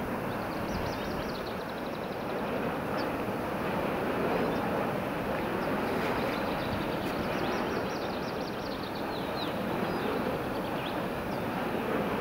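Steady rushing of wind, with a small songbird singing several rapid, high trills in the background.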